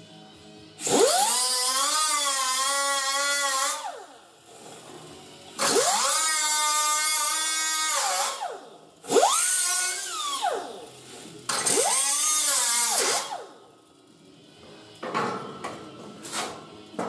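Small high-speed hand-held cutoff tool run in four bursts, each spinning up with a rising whine, cutting into rusty sheet steel, then winding down. A few light metal clicks and taps follow near the end.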